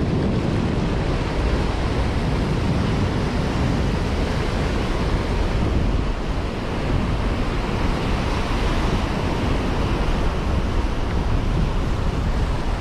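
Ocean surf breaking and washing up the sand in a steady rush, with wind on the microphone.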